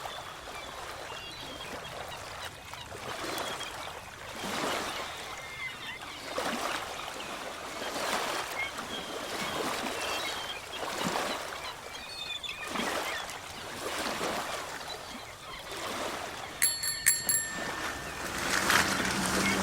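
Ocean waves washing on a shore, the noise swelling in repeated washes a second or two apart, with faint high chirps over them. Near the end comes a short, high metallic ring.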